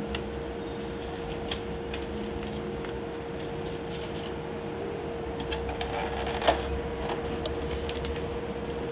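Thermal stencil paper being handled and separated, with small rustles and clicks, and one sharper click about six and a half seconds in as the stencil copier's lid is opened, over a steady hum.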